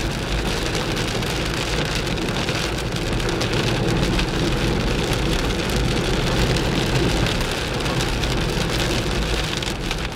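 Steady rain pattering densely, with a low rumble of a car running underneath.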